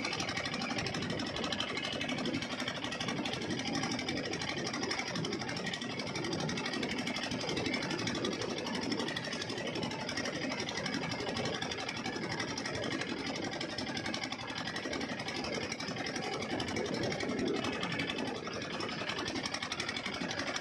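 Small boat engine running steadily with a fast, even beat.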